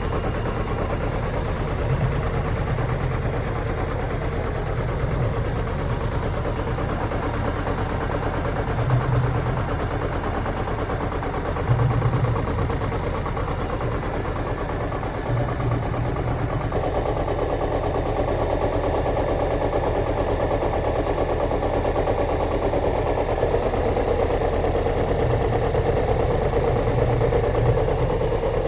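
Chevrolet Celta engine idling steadily with an odd noise, a few brief louder low pulses breaking in and the tone changing about two-thirds of the way through. The owner cannot place the noise: either the catalytic converter or the head gasket.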